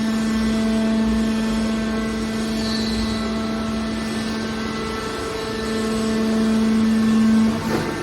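Hydraulic scrap metal baler running with a steady, loud machine hum; the main hum drops away near the end.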